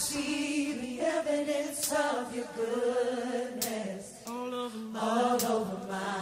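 Background music: several voices singing slow, long-held notes together, with no drums or bass under them.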